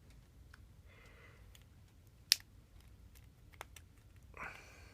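Scattered small sharp clicks of a spring-bar pin being worked out of a toy watch's wristband, with one loud click a little past two seconds in.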